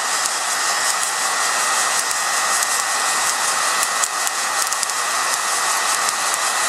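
Heat gun blowing steadily into a flour-sifter coffee roaster, with the beans crackling and snapping in many quick, irregular pops as the roast nears its end.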